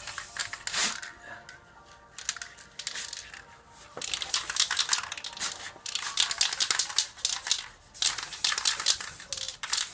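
Repeated rough scraping strokes in uneven runs, with soft background music.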